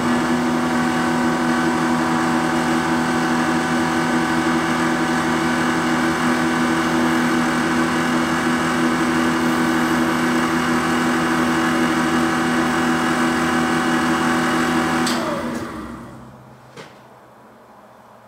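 Snap-on VR-300 valve grinder running steadily with a hum of several steady tones. About 15 seconds in it is switched off and spins down over about a second, its pitch falling, and a single click follows shortly after.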